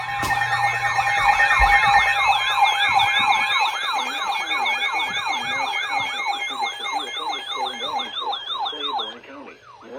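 Electronic siren in a fast yelp, its pitch sweeping up and down about three times a second over a steady tone, fading out about nine seconds in.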